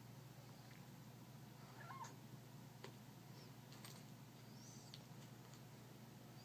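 A cat making a few faint, short, high-pitched chirps and squeaks, with small clicks between them. The cat is excited by a spot of light on the wall.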